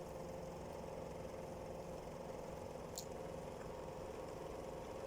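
A steady machine hum with a few held tones, and a single faint click about three seconds in.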